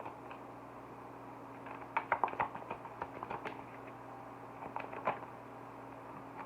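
Tarot cards being handled: scattered light clicks and taps about two seconds in and again around five seconds, over a steady low hum.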